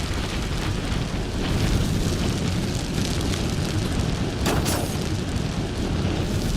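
Aircraft crash and explosion sound effect: a sustained, loud rumbling roar of impact, with two sharp cracks about two thirds of the way through.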